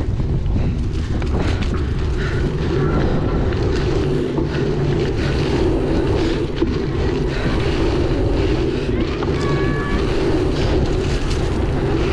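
Strong, gusty wind buffeting the microphone: a steady low rumble.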